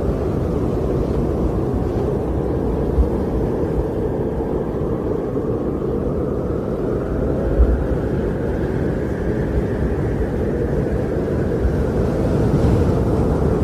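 Wind blowing steadily, a low rushing noise with a faint whistle that slowly rises and falls in pitch, and two brief low buffeting thumps, about three and seven and a half seconds in.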